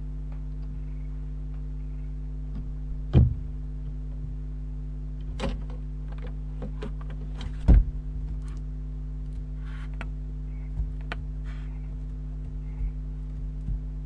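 A barn owl arriving in a wooden nest box: two loud thumps, about three seconds in and, loudest, just before eight seconds in as it lands, then scattered scratches and small knocks as it moves over the littered floor. A steady electrical hum runs underneath.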